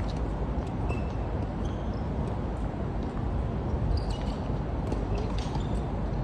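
A few sharp knocks of tennis balls bouncing and being hit on a hard court, mostly about four and five seconds in, over a steady low rumble of outdoor background noise.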